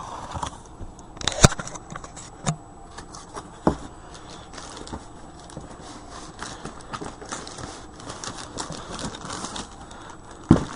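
Packaging being cut open with scissors and handled: crinkling and rustling with many small scattered clicks and snips, and a few louder knocks, one about a second and a half in and one near the end.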